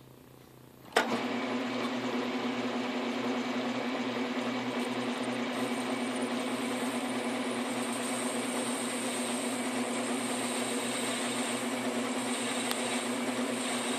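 Metal lathe switched on about a second in with a sharp click, then running steadily with a constant hum, spinning an aluminum pulley between centres.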